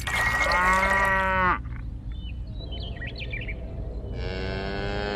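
A cow mooing: one loud long call lasting about a second and a half, then a second long moo near the end.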